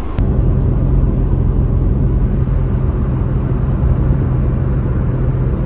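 Alfa Romeo 75 V6 heard from inside the cabin while driving at a steady speed: a steady low engine drone mixed with road noise.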